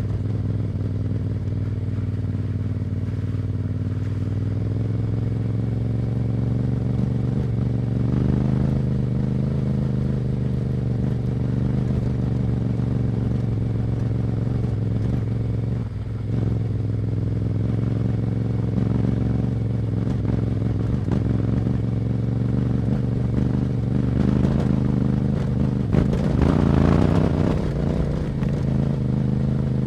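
Yamaha Ténéré 700's 689 cc parallel-twin engine running through an Akrapovic exhaust while the bike is ridden at a fairly steady engine speed. The sound dips briefly about halfway through and swells louder near the end.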